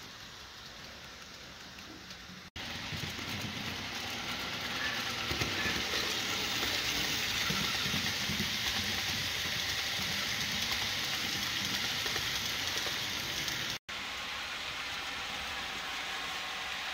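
HO scale model C&NW passenger train rolling along the track: a steady hissing rattle of small wheels on rail. It gets louder after a brief cut-out about two and a half seconds in, and falls back after a second cut-out near the end.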